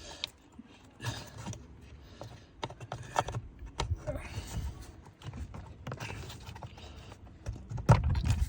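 Plastic parts of a van's air filter housing being handled and refitted: a scatter of light clicks and knocks as a plug and clips are pushed back into place, with a louder knock near the end.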